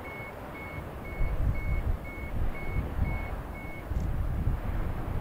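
A vehicle reversing alarm beeping at one steady high pitch, about two beeps a second, eight times before it stops near the end. Under it there is an uneven low rumble, loudest about a second in.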